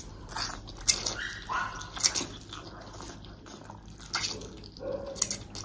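Close-miked eating of noodles and momos: a run of short clicks, smacks and wet chewing noises, with a couple of brief squeaky slurps.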